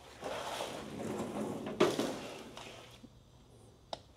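Scraping, rustling handling noise lasting about two and a half seconds, with one sharp knock near the middle and a faint click near the end, as the front fork's pinch bolts are snugged up by hand.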